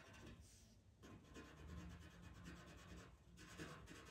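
Faint scratching of a pastel pencil stroking over Pastelmat paper, in a run of short strokes broken by brief pauses.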